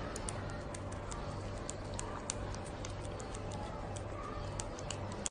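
A kitten licking at the nozzle of a squeezed tube: small, quick, irregular clicks, several a second, over a steady low hum and hiss.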